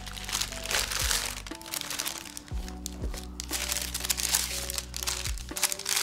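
Brown packing paper crinkling and rustling in irregular bursts as it is handled and unwrapped, over steady background music.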